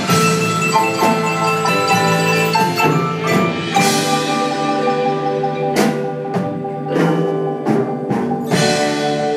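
Percussion ensemble playing on marimbas, vibraphone and other mallet keyboard instruments: ringing, sustained chords, with several sharp accented strikes in the second half.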